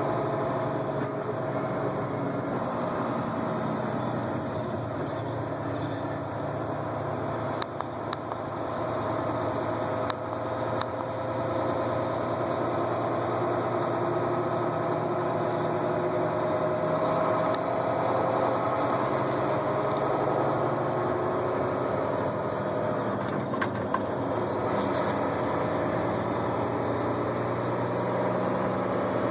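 Steady engine and road noise heard from inside a vehicle driving on a highway, with a few faint clicks.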